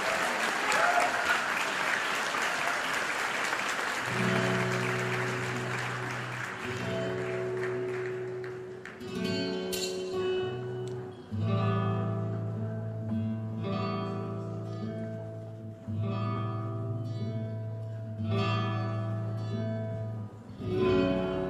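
Audience applause that fades out over the first several seconds as paso doble music begins. The music is held chords that break off and start again every few seconds.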